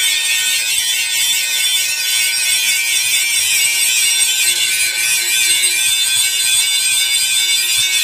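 Handheld electric angle grinder running steadily against steel, its disc on the metal giving a continuous high-pitched whine and hiss.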